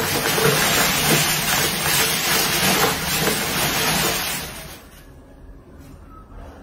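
A loud, steady hissing noise that stops about four and a half seconds in.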